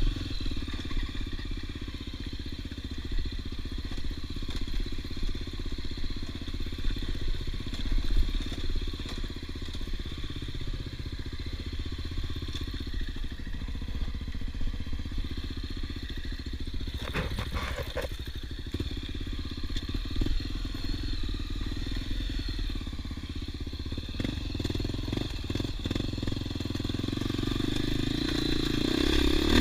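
Honda XR250 Tornado's single-cylinder four-stroke engine running at low revs on a rough off-road trail, with a few clattering knocks about halfway through and the engine getting louder near the end as it picks up revs.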